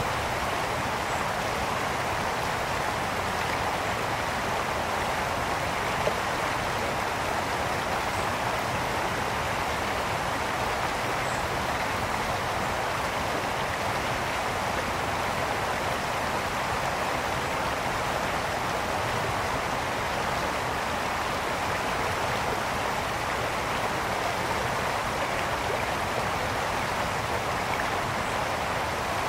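Brook water flowing and splashing over stones in a steady, even rush.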